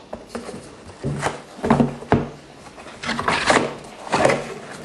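Cardboard box and packaging being handled while accessories are taken out: a series of rustles and light knocks, with a sharp tap about two seconds in.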